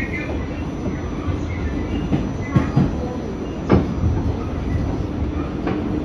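R46 subway car running along the track, heard from inside the car: a steady low rumble with several wheel clacks over rail joints, the loudest a little before four seconds in.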